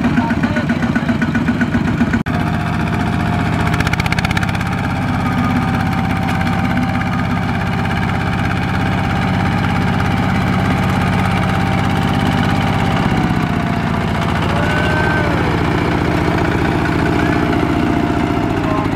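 Single-cylinder diesel engine of a Kubota ZT120 two-wheel walking tractor running steadily under load as it hauls a trailer of rice sacks up an embankment, its note shifting about two-thirds of the way in.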